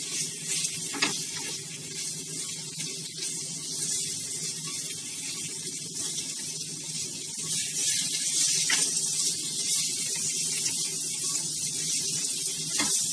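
Potatoes, onion and ground spices frying in oil in a wok: a steady sizzling hiss as they are stirred. A silicone spatula knocks and scrapes against the pan a few times.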